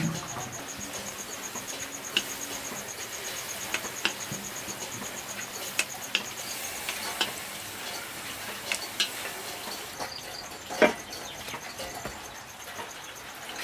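A ladle clinking and scraping against a wok and a stainless steel bowl as soup is ladled out, over a light simmering hiss. Near the end there is one louder knock as the metal bowl is set down on a wooden table.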